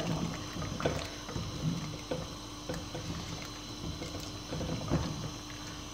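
Wooden ladle stirring thick, cooked moong dal in a clay pot: wet sloshing with a few light knocks of the ladle against the pot.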